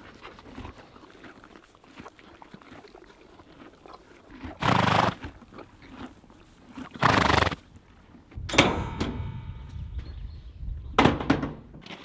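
Horses right at the camera munching hay, with two loud snorts of about half a second each, a little before halfway and about two-thirds of the way in. Their muzzles then knock and rub against the camera near the end.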